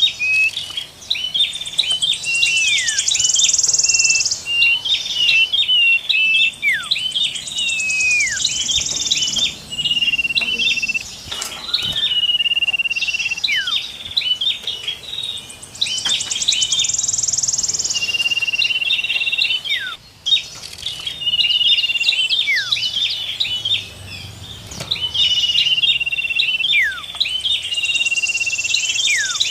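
Looped bird-lure recording of songbirds: rapid high chips and chatter, held whistled notes, falling whistles and a high buzzy trill. The whole phrase repeats about every six to seven seconds.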